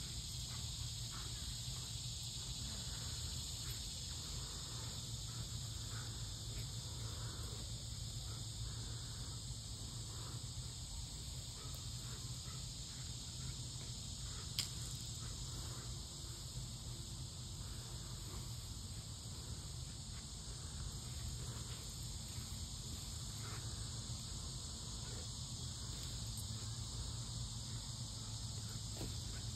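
Steady high-pitched outdoor hiss over a low rumble, with faint rustles of cut leafy tree branches being dragged and tugged across a lawn. One sharp click comes about halfway through.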